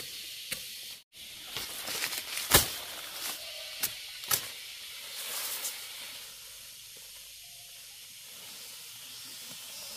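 Elephant grass stalks being chopped with a machete: several sharp cuts with rustling leaves in the first half, the loudest about two and a half seconds in, over a steady high hiss.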